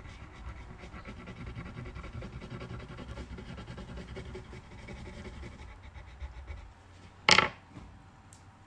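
Wax crayon scribbling rapidly on paper, filling in colour, until about six and a half seconds in. One sharp knock, the loudest sound, comes about seven seconds in.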